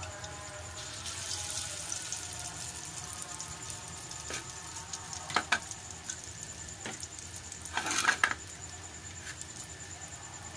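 Spaghetti-and-potato cutlets deep-frying in hot oil in a steel kadhai, sizzling steadily with fine crackling. A pair of sharp clicks comes about halfway, and a louder cluster of clicks about eight seconds in.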